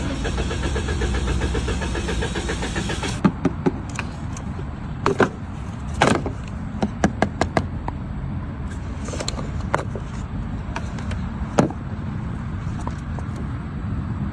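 Car sounds: a steady low hum, with a pitched buzzing for the first three seconds that then cuts off, followed by scattered sharp clicks and knocks.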